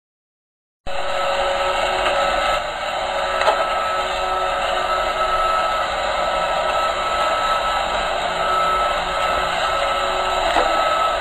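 Robot vacuum cleaner running: a steady motor-and-fan whir with a fixed high whine, starting abruptly about a second in, with a couple of faint clicks.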